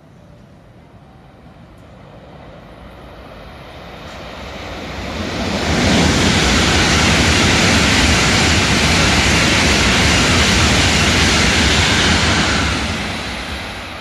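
N700 series Shinkansen passing through a station at speed without stopping: a rushing noise that builds over several seconds, stays loud for about six seconds as the train goes by, then fades away.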